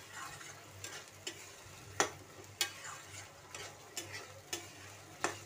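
Spatula stirring chana dal in frying masala in a kadhai: a light sizzle with sharp scrapes and knocks of the spatula against the pan every second or so, as the dal is fried (bhuna) in the masala.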